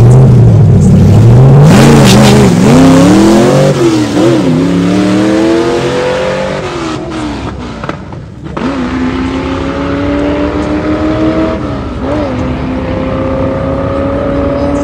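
Ford Falcon gasser's engine at full throttle on a drag-strip pass, launching from the start line and accelerating away. Its pitch climbs and drops back sharply several times, and it grows fainter as the car runs down the track.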